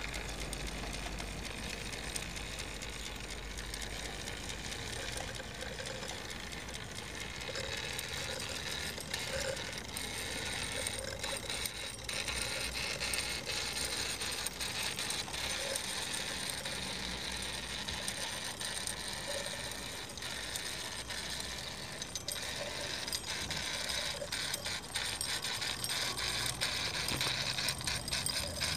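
Wilesco D36 live-steam toy steam roller running under its own steam, its small engine and gear drive clattering steadily as it rolls over gravel.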